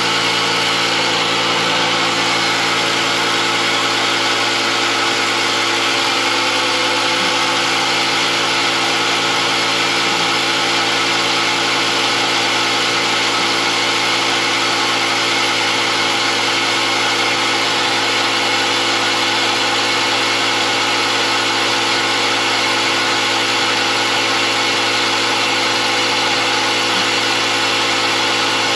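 A motor running steadily at a constant speed, a loud even drone with no change in pitch or level.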